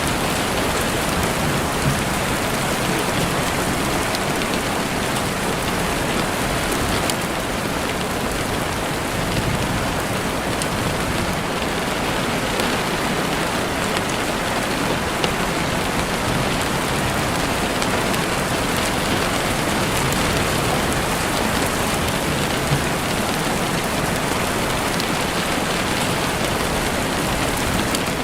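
Steady rain falling through trees, with a few sharp pops from a crackling campfire scattered through it.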